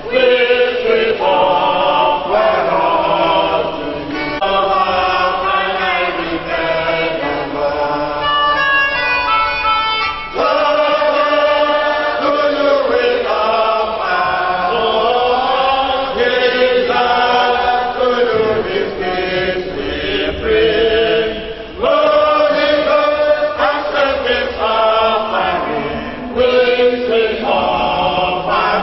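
Congregation singing a hymn together, many voices in sustained phrases with short breaks between lines.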